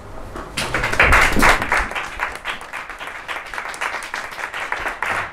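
Audience applauding at the end of a talk, starting about half a second in, loudest for the first second and then carrying on steadily.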